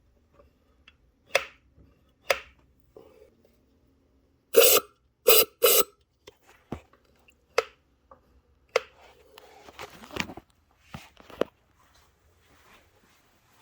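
Scattered knocks and clicks of hard objects being handled, the loudest three coming close together about halfway through.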